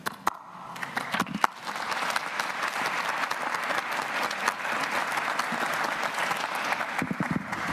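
Audience applauding: a few scattered claps at first, swelling within about two seconds into steady applause.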